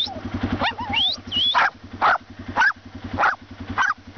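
Small dog barking: about five short, sharp barks roughly half a second apart, after a couple of high rising whistles about a second in.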